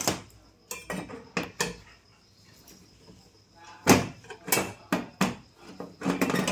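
Irregular knocks and clicks of hands and test probes handling an LED TV's circuit board and sheet-metal back chassis: a few taps in the first second and a half, a quiet stretch of about two seconds, then a denser run of sharp taps.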